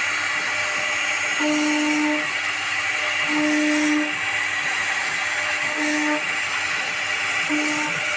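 CNC router spindle running and cutting HDHMR board: a steady high machine whine and cutting noise. A lower hum comes in briefly four times, each about half a second.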